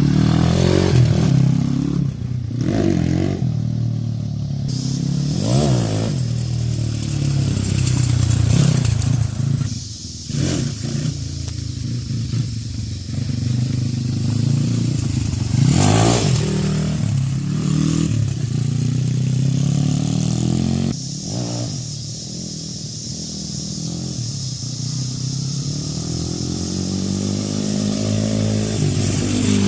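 Freshly rebuilt YX 140cc pit bike engine, a small single-cylinder four-stroke, running after its first start on the rebuild and being revved up and down several times, with a long, slow rise and fall in revs near the end.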